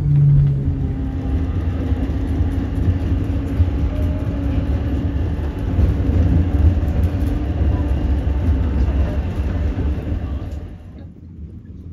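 Heritage tram running along the track, heard from on board: a steady low rumble of wheels and motor with a faint hum above it, which falls away sharply near the end.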